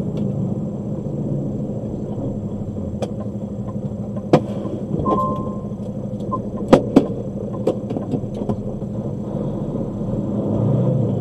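Steady road and engine noise heard inside a moving car. Several sharp clicks come between about four and nine seconds in, and a brief beep sounds around five seconds in.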